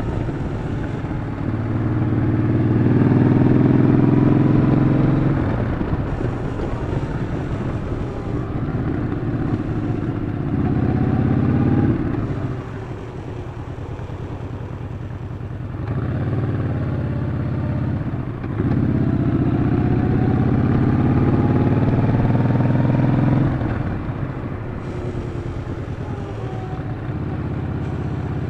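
Yamaha Bolt's air-cooled V-twin engine while riding, its pitch climbing as it pulls under throttle and then easing off. This happens twice, with the engine backing off about halfway through and again a few seconds before the end.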